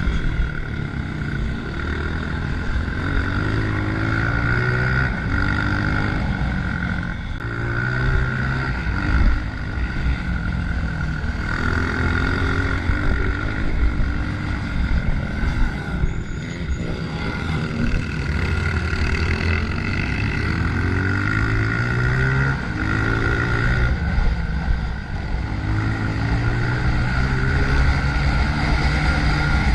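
Honda CRF125F's single-cylinder four-stroke engine pulling hard and revving up through the gears over and over, its pitch climbing in steps and dropping back between pulls. A steady high tone runs above it.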